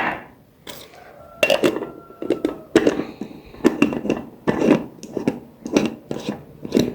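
A salt jar and utensils being handled while salt is moved into the new jar: a string of irregular knocks, clinks and scrapes, about one or two a second, after a quiet first second.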